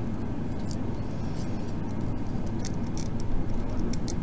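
Steady low background hum, with scattered faint small clicks and taps from a PIR sensor's plastic dome lens being handled and pressed onto its circuit board.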